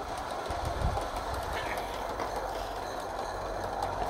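Accucraft Decauville 0-4-0T 7/8th-scale live-steam tank engine running along the track with its coach: a steady hiss with light clicking of the wheels over the rails.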